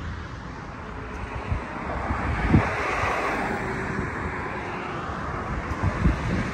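Road traffic on a multi-lane highway, a steady tyre-and-engine rush that swells as a vehicle passes a little before the middle, with a few short low thumps on the microphone.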